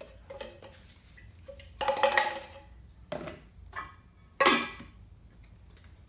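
Metal paint cans and a wooden stir stick handled on a workbench: a clattering knock about two seconds in, two lighter knocks, then a sharp clank about four and a half seconds in, the loudest.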